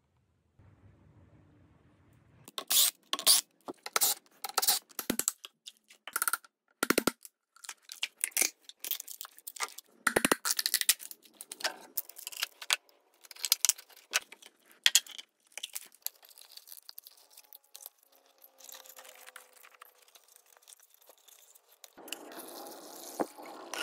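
Workshop handling noises from a taped wooden mold form box and a silicone mold being worked by hand: many sharp clicks and knocks with tearing and crinkling, fading to scattered small sounds. A steadier hiss starts near the end.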